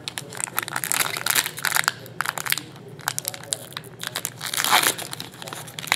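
Foil trading-card pack wrapper crinkling and tearing as it is opened by hand, an irregular run of crackles.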